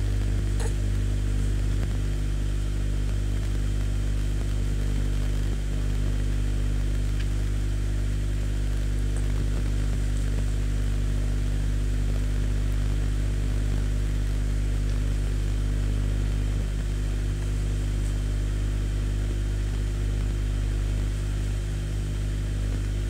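A steady low hum from a running motor or electrical appliance, holding one even pitch with no change.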